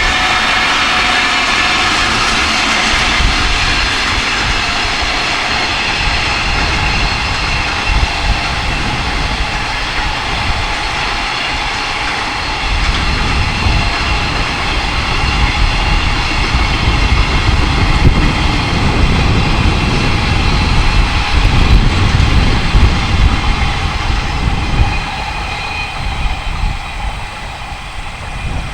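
Freight train hauled by an electric locomotive passing close by: a loud, steady running noise with a high whine. From about halfway, the rumble and clatter of the wagons' wheels on the rails grows stronger.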